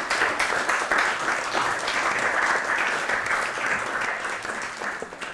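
Audience applauding: many hands clapping in a dense, steady patter that thins out and fades near the end.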